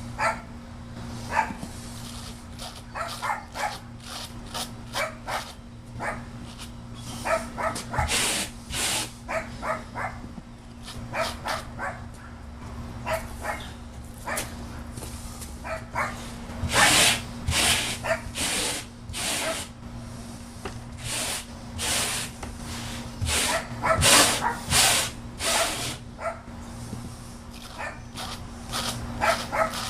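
A dog barking over and over in runs of short barks, loudest around the middle and again about two-thirds through, over a steady low hum.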